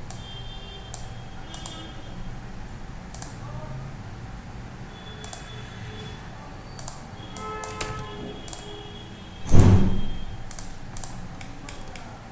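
Scattered clicks of a computer mouse and keyboard keys. A louder dull thump comes about nine and a half seconds in.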